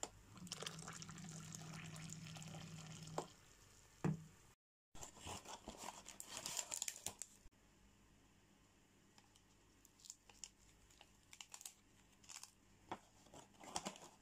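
Faint handling of a tea bag and its paper wrapper: crinkling and tearing for a couple of seconds, then a few light taps and clicks. Earlier, a brief steady hum with a water-like hiss.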